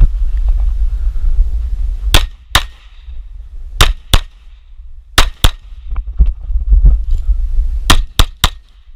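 Glock 19 9mm pistol firing nine shots, mostly in quick pairs, three pairs and then three rapid shots near the end. A loud low rumble fills the first couple of seconds before the shooting resumes.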